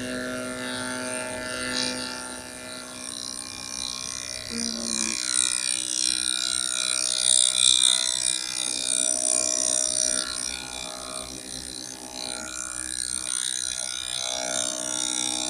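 Milling machine spindle running as it cuts, a steady motor whine over a hissing cutting noise. The pitch shifts briefly about four and a half seconds in.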